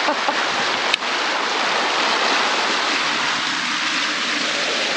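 Shallow river rushing over rocks in a riffle, a steady full rush of white water close to the microphone, with a brief click about a second in.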